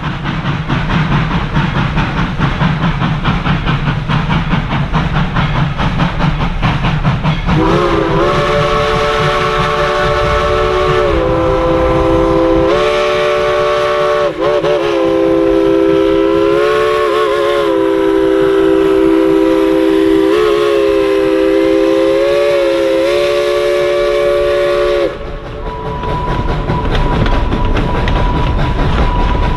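A steam train approaches with a rumble, then the locomotive's chime whistle blows a long, wavering chord of several tones for about seventeen seconds, with a few short dips, the signal for the road grade crossing. After it stops, the passenger coaches roll past with a rumble and a thin steady high tone.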